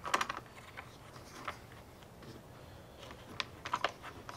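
Light, scattered clicks and ticks of plastic and metal parts as the clamp screw is turned to fix a Power-Pole Micro Anchor motor module onto its kayak mounting bracket. A cluster of clicks comes at the start, a single one about a second and a half in, and another cluster near the end.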